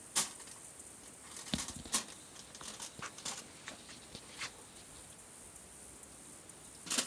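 Wood fire crackling in a homemade grill: irregular sharp pops and clicks over a faint steady hiss, with a loud pop near the start and another near the end.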